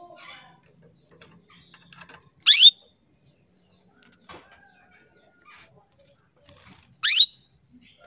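Female canary giving two loud, quick rising call notes about four and a half seconds apart, with faint chirps between: the female's call to a male canary.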